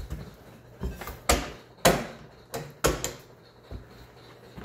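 Irregular sharp clicks and knocks, about eight, from circuit switches and relays of a water race arcade game's control system being switched on, over a faint steady hum.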